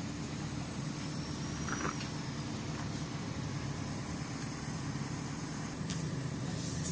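Diesel engine of heavy machinery idling steadily, a low rumble.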